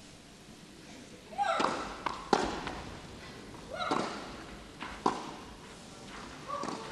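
Tennis rally on a clay court: racket strikes on the ball about every one and a half seconds, the sharp hits alternating with a player's short grunts on her own shots.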